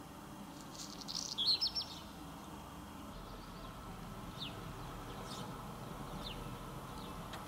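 Small songbird chirping: a quick scratchy twitter about a second in, then single short downward chirps spaced about a second apart. From about three seconds in a faint low rumble sits underneath.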